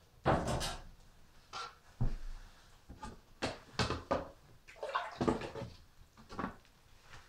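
Irregular knocks, clatters and rustling, about a dozen over several seconds, from a person moving and handling things right beside the microphone.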